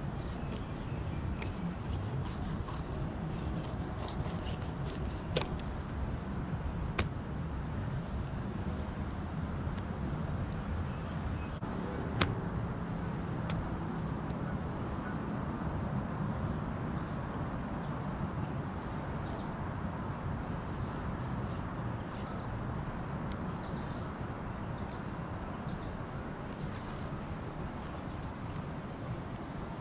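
Fillet knife working on a fish on wooden dock boards, with a few short sharp clicks of the blade against the wood. Under it runs a steady low background noise and a thin steady high whine.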